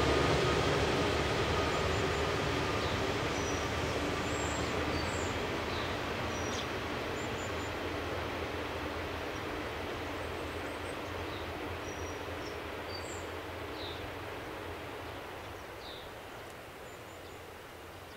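KiHa 183 series diesel train running past and fading steadily into the distance, its engine and rail noise dying away over several seconds. Small birds chirp now and then throughout.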